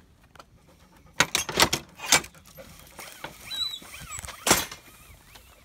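Hurried footsteps on a dirt footpath with loud rustling bumps, a cluster of them about a second in and one more near the end. A few faint chirps in between.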